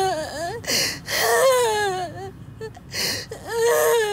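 A woman sobbing hard. Long, wavering cries fall in pitch, broken by sharp gasping breaths.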